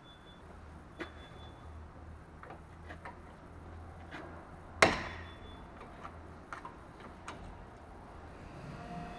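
Scattered clicks and light clinks of hand tools working at a pickup's front brake caliper, with one sharp knock about five seconds in.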